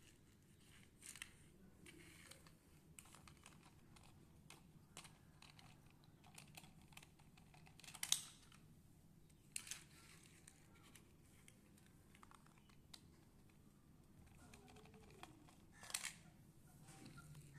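Faint scattered clicks and clatters of small toy cars being set down and knocked against plastic building blocks and each other, the sharpest about eight seconds in and again near the end.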